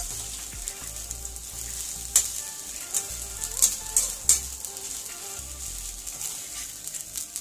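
Omena (small dried lake sardines) sizzling in a frying pan as they are fried dry, stirred and turned with a slotted metal spatula. A few sharp scrapes and clicks of the spatula against the pan come in the middle.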